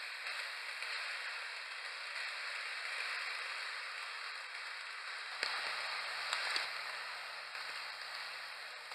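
H0-scale model freight train running on sectional track: a steady rattle of the wagons' wheels on the rails with the Class 66 model locomotive's motor. About five seconds in the sound changes, a low steady hum sets in and a few clicks are heard.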